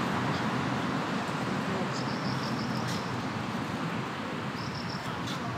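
Steady rumble of road traffic. A faint, high-pitched run of short pips comes twice, about two seconds in and again near the end.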